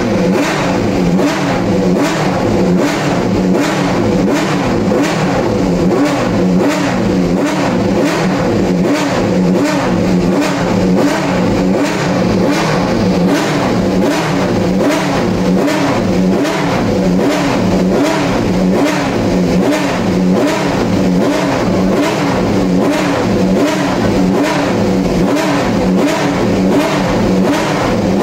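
March 88B F3000 car's V8 racing engine running at a lumpy idle, its note rising and falling in a steady surge a couple of times a second.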